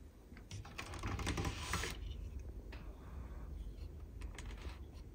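Hands handling small metal parts in the multimeter's chassis, the screw and cable clamp at the earth point: a quick flurry of light clicks and rattles in the first two seconds, then a few scattered clicks.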